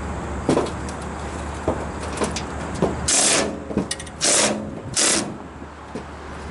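Cordless drill driver spinning screws out of a compressor's sheet-metal cover panel in three short bursts, about a second apart in the second half, with light clicks and knocks of the screws and panel before them. A steady low hum underneath stops just before the first burst.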